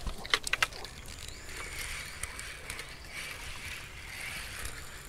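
Spinning reel being cranked to wind in line on a feeder rod: a steady whirring hiss, after a few sharp clicks of handling about half a second in.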